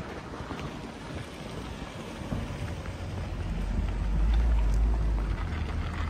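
Outdoor city street ambience as a hiss-like haze, with a deep low rumble building from about two seconds in and peaking a little past the middle.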